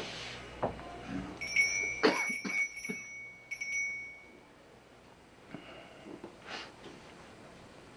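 A small bell ringing: a clear high ringing tone struck about a second and a half in, struck again briefly a couple of seconds later, and dying away about four seconds in, with a few soft knocks around the first strike.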